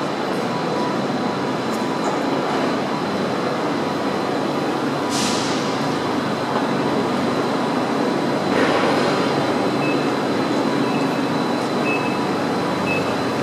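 Electric trains standing in a station, running with a steady hum and rumble. A short burst of air hiss comes about five seconds in and a weaker one near nine seconds, and faint short beeps sound later on.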